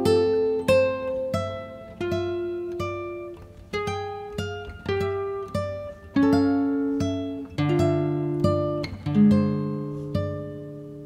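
Background music: an acoustic guitar playing a slow melody of plucked notes and chords, each note ringing and fading.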